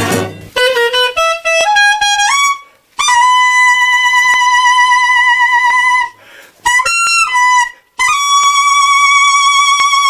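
A solo wind instrument plays a quick stepwise run of rising notes over the first two seconds or so. It then holds a long high note with vibrato, plays a short note, and holds another long high note, with brief breaks in between.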